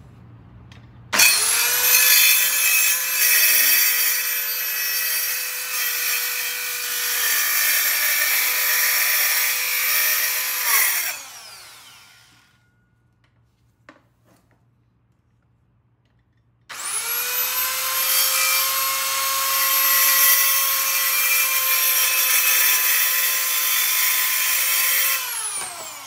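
Compact corded circular saw cutting a luxury vinyl plank, in two runs. Each time the motor spins up at once to a steady whine and cuts for about ten and then about eight seconds, then winds down after the trigger is released.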